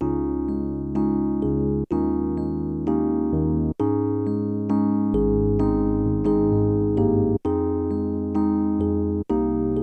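Background keyboard music in the manner of an electric piano: held chords that change every second or two, with brief breaks between some of them.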